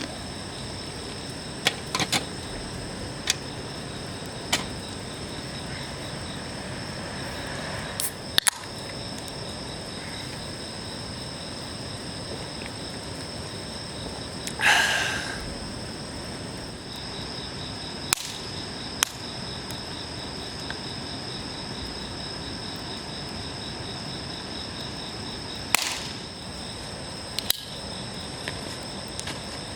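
Steady high-pitched insect chirring, with a campfire crackling now and then: scattered sharp pops and one louder burst about halfway.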